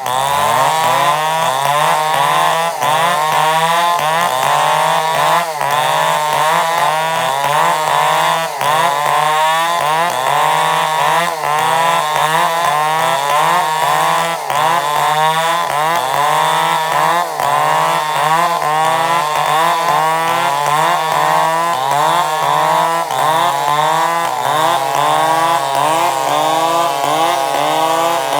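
Chainsaw running under load while cutting timber into beams, its engine pitch repeatedly dipping and recovering as the chain bites. The engine runs steadier near the end.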